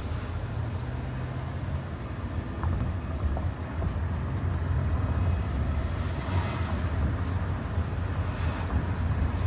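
Road noise from a moving car: a steady low rumble of tyres and engine, with a brief swell in the higher hiss about six and a half seconds in.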